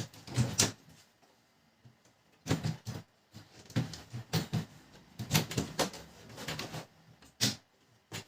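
Irregular clicks, knocks and clatter of laser-printer parts being handled during a fuser unit replacement, in clusters with short pauses between.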